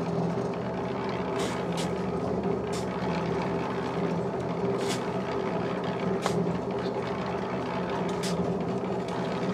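Small portable drum concrete mixer running steadily with a constant hum while it is loaded with sand for dry mortar. A few short scrapes of shovels scooping sand are heard over it.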